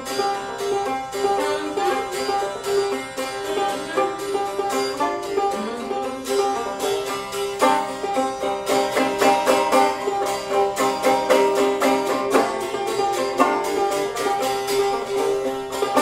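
Banjo playing an old-time tune in quick, even plucked notes, growing busier about halfway through.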